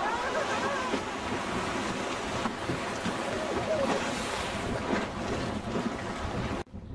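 River rapids rushing and churning: a steady wash of whitewater. It cuts off abruptly near the end.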